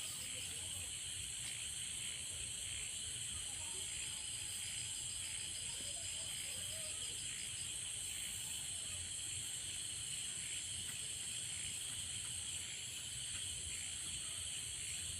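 Steady high-pitched hiss and insect trilling in the background, with a faint low rumble and no distinct work sounds.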